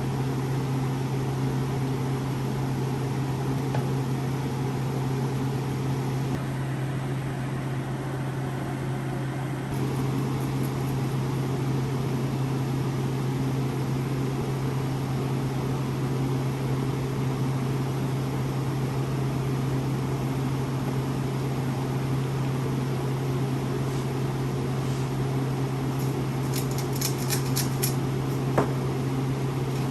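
A motor or fan running steadily with a constant low hum. A few light clicks come near the end.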